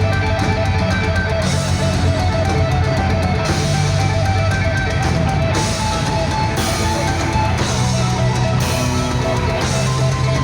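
Heavy metal band playing live: distorted electric guitars over bass, held notes changing every second or two.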